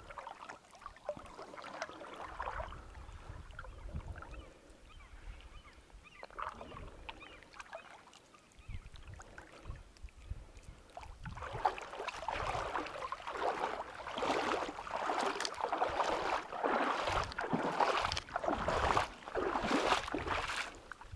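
Water sloshing and splashing as someone in rubber waders wades toward the bank, hauling a wet gill net. It is softer at first, then comes in louder splashing surges about once a second through the second half.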